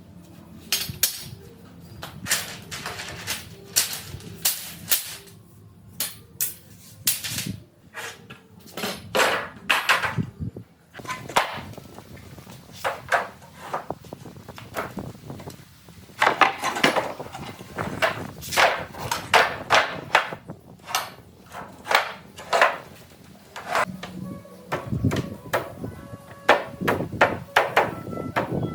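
Repeated hammer strikes on wood, in irregular runs that thin out in the middle and come faster again after about 16 seconds, over faint background music.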